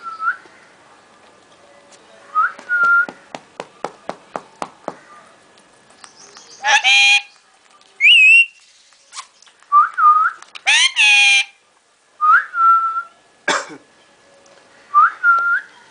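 Pet parrot whistling and calling: a short whistle that rises then holds, repeated about five times, a quick run of clicks early on, and two loud harsh screeching calls in the middle, between which a whistle glides up and down.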